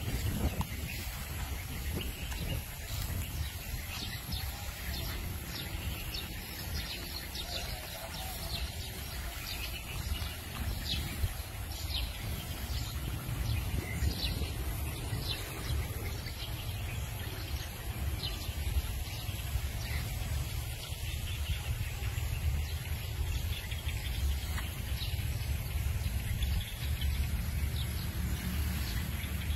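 Wind rumbling on the microphone, with many short bird chirps scattered over it.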